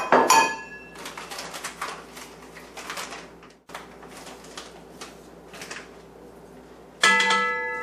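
Metal ringing from the stand mixer's stainless steel bowl being knocked twice, at the start and again about seven seconds in, the second ring louder and fading over most of a second. Faint clicks and scrapes in between as almond flour is tipped into the bowl.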